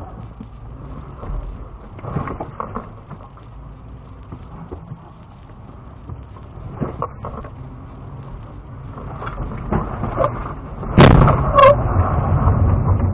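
Lexus GX470's V8 running low as the truck crawls over granite slab, heard from inside the cabin, with scattered knocks and creaks from the body and suspension. About eleven seconds in come the loudest thumps and a couple of short squeaks as the nose tips up over a rock ledge.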